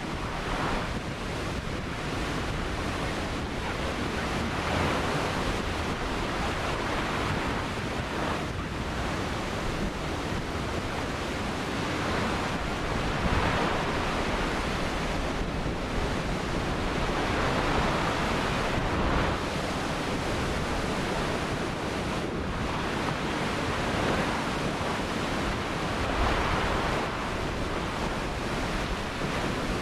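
Ocean surf: waves breaking and washing up the shore without pause, swelling louder every few seconds.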